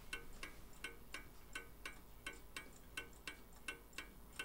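Hermle skeleton mantel clock's open brass mechanical movement ticking softly, with a tick-tock of alternating louder and softer beats about three a second. The clock has been tipped out of level left to right, which can make the tick and the tock sound uneven.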